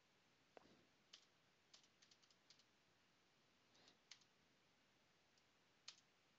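Near silence with a few faint, irregular clicks from a computer keyboard.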